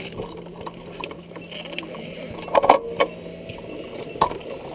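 A few sharp clicks and knocks, the loudest about two and a half seconds in, another around three seconds and one more just after four, over a faint background.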